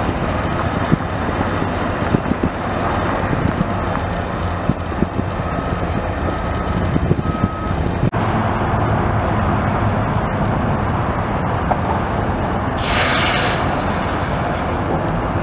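Diesel construction machinery running steadily with a low rumble, with scattered clanks in the first half and a brief hiss about 13 seconds in.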